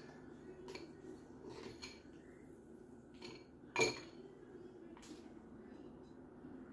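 Faint, scattered clinks and taps of kitchen utensils against dishware, with one sharper clink about four seconds in.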